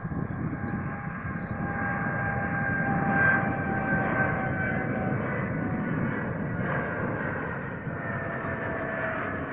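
Boeing 787 Dreamliner's jet engines at take-off power as it climbs out overhead: a steady jet roar with a low rumble and a whine that slowly falls in pitch, loudest about three seconds in.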